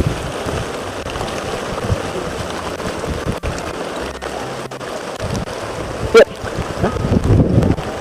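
Wind buffeting the microphone, a steady noisy rumble. There is one short, loud sound about six seconds in.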